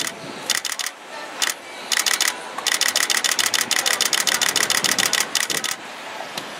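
DSLR camera shutters firing in rapid continuous bursts, several cameras overlapping, in short volleys that start and stop; the longest volley runs about three seconds, starting near the middle.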